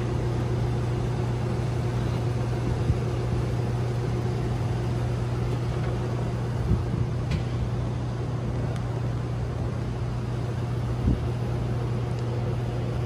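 A steady low mechanical hum, with a few short knocks scattered through it.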